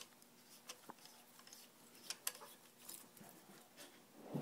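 Very quiet handling with a few faint, scattered metal clicks: a gloved hand refitting the motorcycle's headstock nut on the top triple clamp.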